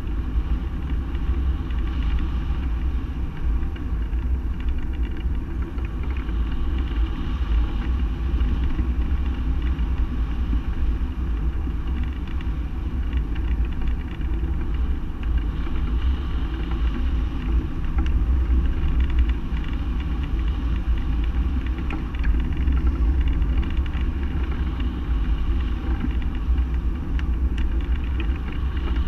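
Steady low rumble of air rushing over and buffeting the microphone of a camera mounted on a hang glider's wing in flight.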